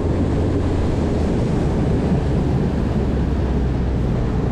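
Mercury 60 outboard motor running at speed, driving a small skiff across open water: a steady low drone under rushing water and wind buffeting the microphone.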